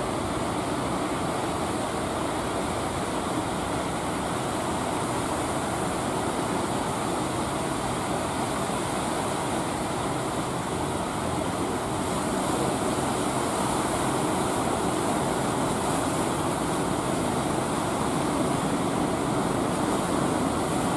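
Surf breaking at a harbour mouth: a steady rushing noise that grows slightly louder about halfway through.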